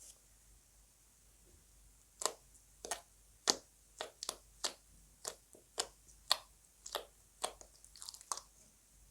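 Slime being mixed and pressed by hand, giving a run of short, sharp, wet pops and squelches, about two a second, starting about two seconds in.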